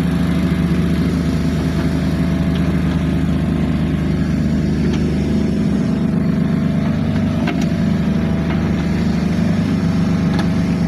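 An engine running steadily at an even speed, with a few light knocks.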